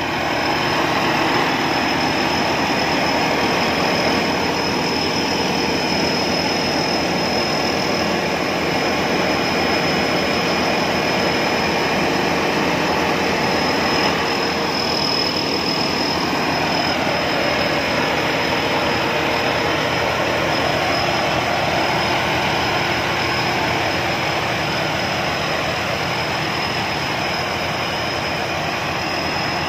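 Rice combine harvester running steadily under load while it unloads grain into a truck: a dense, even mechanical din of engine and machinery with a thin, steady high whine over it.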